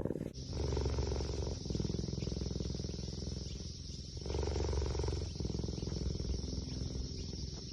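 A wild cat purring: a low, finely pulsed rumble that swells and eases in long phases with its breathing in and out.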